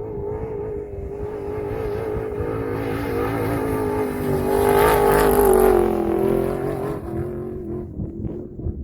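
Vehicle engine running and revving, growing louder to a peak about halfway through, then easing back.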